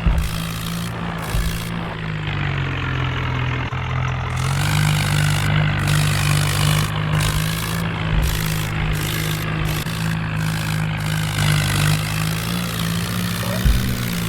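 Swaraj 855 FE tractor's three-cylinder diesel engine running steadily, its pitch sagging briefly a few seconds in and then picking up again, with a few low thumps.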